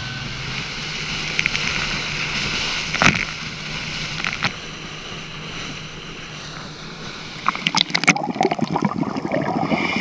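Inflatable dive boat running fast over choppy sea: a steady rush of water with a low motor note, broken by a few sharp knocks. Spray splashes heavily against the side in the last few seconds.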